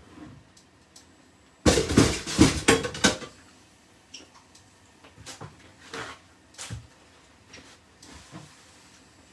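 Cookware clatter: a loud run of quick knocks and scrapes from a pan and utensils, lasting about a second and a half from nearly two seconds in, then a few lighter knocks and taps.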